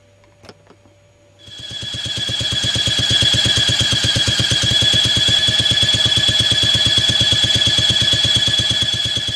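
Simonini Mini 2 Plus small two-stroke engine starting about a second and a half in, then running steadily with a rapid even firing beat and a steady high whine over it, while its ignition timing is checked with a strobe timing light.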